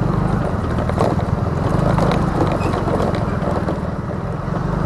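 Motor scooter's small engine running steadily while riding, with wind rushing over the microphone.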